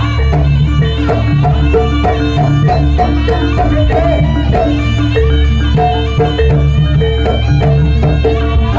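Live Javanese jaranan accompaniment music: drums and tuned percussion playing a steady, busy rhythm over held melodic notes and a heavy bass.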